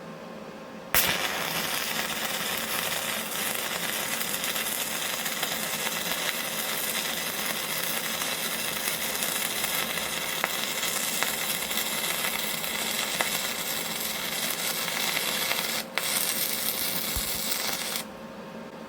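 Shielded metal arc welding with a 3/32-inch AWS 6011 electrode on a Yeswelder MIG-250 Pro at 90 amps: the arc strikes sharply about a second in and burns with a steady crackling hiss. It drops out for a moment near the end, catches again, then stops shortly before the end.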